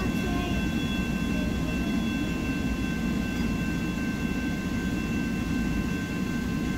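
Railroad grade-crossing warning bell ringing steadily, its tones held over a continuous low rumble, as the crossing stays active just after a train has cleared.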